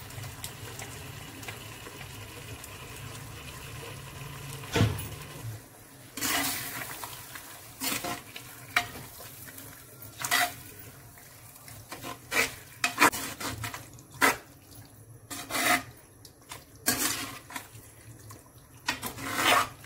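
Steel ladle scraping and knocking against an earthenware clay pot in irregular strokes as mutton is stirred into masala paste, starting about six seconds in. Before that, a faint steady sizzle of the cooking meat and one thump about five seconds in.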